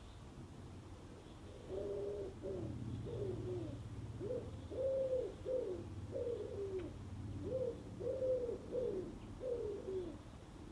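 A pigeon cooing: a series of repeated low coos in short phrases, starting about two seconds in and running until just before the end.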